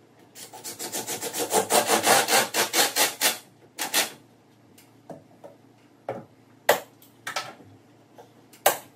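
Rasping, scraping strokes on wood in a fast even run for about three seconds, then a few scattered knocks and clicks, two of them sharp and loud near the end.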